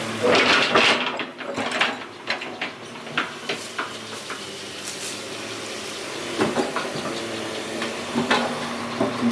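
Scattered clicks and knocks of objects being handled, over a steady low hum; the knocks are densest about a second in.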